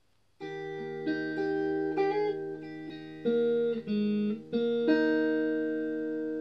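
Solid-body electric guitar playing a song intro: picked notes ring out and change in steps over a held low note, starting about half a second in.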